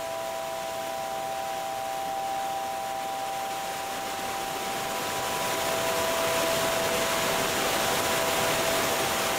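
Ambient film-score music: a sustained chord of steady held tones over a dense, hiss-like wash of noise, swelling slightly about halfway through.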